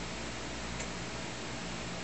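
Steady whir of a running computer's cooling fans, with low electrical hum and a couple of faint ticks.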